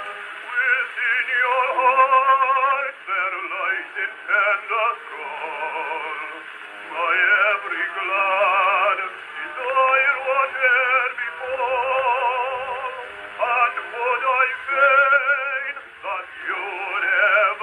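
A 1915 Columbia acoustic 78 rpm record of a male singer with a wide vibrato, sung in phrases with short breaks, played on an HMV 103 wind-up gramophone. The sound is thin and narrow, with no deep bass and no high treble.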